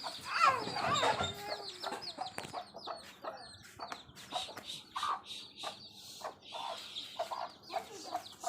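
Baby chicks peeping over and over, a hen clucking now and then, and scattered short clicks and taps.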